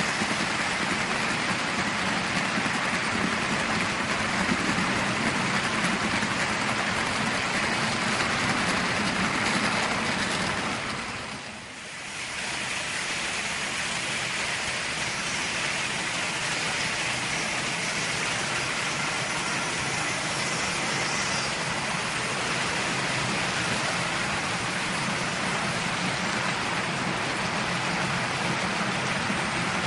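Märklin HO model freight train running over the layout's track, a steady rolling rattle of wheels on rails that dips briefly about a third of the way in.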